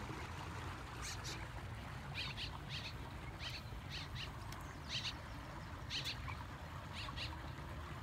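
Six-week-old turkey poults peeping: a dozen or so short, high peeps, often in quick pairs, over a low steady rumble.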